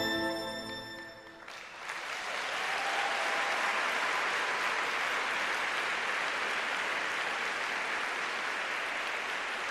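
Arena audience applauding steadily after the program music's last notes die away in the first second and a half.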